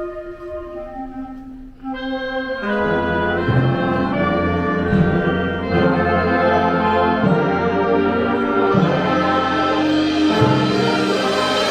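Orchestral music with brass: a soft passage that swells into a fuller, louder one about three seconds in.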